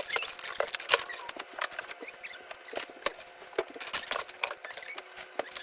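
Plastic crinkling and rustling, a dense stream of small crackles as packaged items are handled and pulled out of shopping bags.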